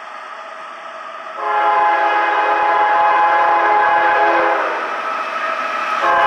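Air horn of an approaching CSX GE ES44AH freight locomotive sounding a multi-note chord. One long blast of about three seconds starts a second and a half in and eases off, then a second blast begins near the end.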